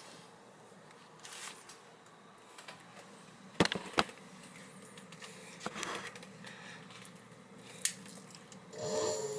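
Switch clicking, two sharp clicks less than half a second apart and another a few seconds later, then near the end an electric motor spins up with a rising whine into a steady hum.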